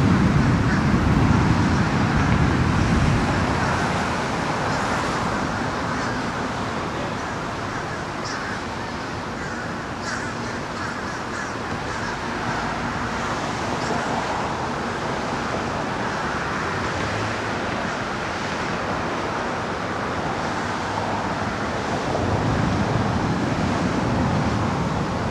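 Strong gusty thunderstorm wind rushing through the trees, with gusts buffeting the microphone loudest at the start, easing off after a few seconds and picking up again near the end.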